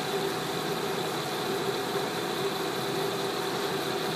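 The 3-horsepower variable-speed head of an Acer 3VS vertical milling machine running steadily, its spindle in low range at mid-range speed, with a steady whine over the hum.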